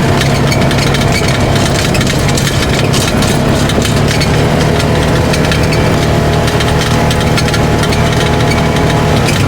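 Polaris RZR 570 side-by-side's single-cylinder engine running steadily at low speed, with clicks and rattles from the buggy on the dirt track.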